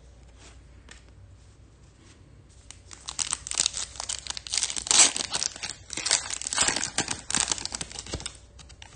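Foil wrapper of a Topps Chrome trading-card pack being torn open and crinkled by hand. A dense crackling starts about three seconds in, is loudest midway and stops shortly before the end.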